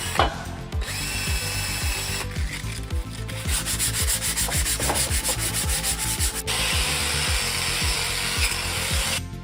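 Sanding and rubbing sounds in several short clips that change abruptly, including a stretch of fast, even strokes in the middle, over a steady background music beat.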